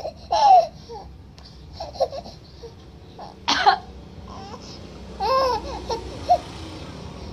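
A woman's short coughs, with a baby answering in squealing, babbling laughs, in a few separate bursts.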